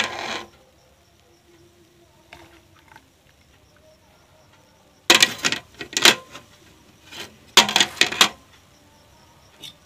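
Stainless steel mug knocking and scraping against a steel milk bucket and jug as milk is scooped out and poured through a strainer. The clinks come in two quick clusters about halfway through.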